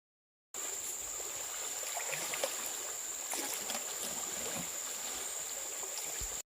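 Faint steady ambient hiss with a thin, steady high-pitched tone and a few soft ticks, cutting off suddenly at the end.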